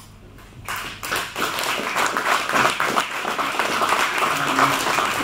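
Audience applauding, starting about a second in after a short lull.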